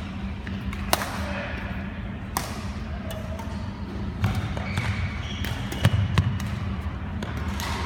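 Badminton rackets striking a shuttlecock in a rally: sharp, single hits roughly every second and a half, with two close together about six seconds in, carried in a large sports hall.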